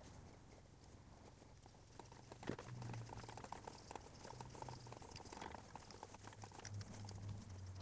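Faint, irregular clicks and scraping of a hand tap being turned with a tap wrench, cutting threads into the snout of a 283 small-block Chevy crankshaft for a balancer bolt.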